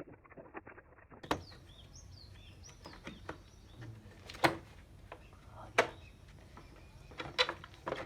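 A handful of sharp knocks, about four spread over several seconds, with small birds chirping faintly in the background.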